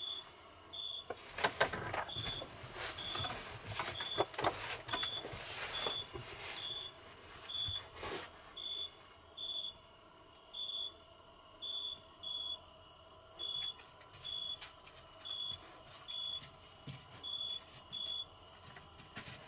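A short, high, clear chirp repeats about once a second throughout. Over the first half comes the rustle and creak of a person turning over on a wooden bench bed, his clothes and blanket shifting.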